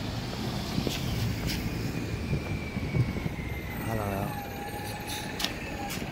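City street traffic: a vehicle rumbling past, with a faint slowly falling whine, a steady higher tone near the end and a few sharp clicks.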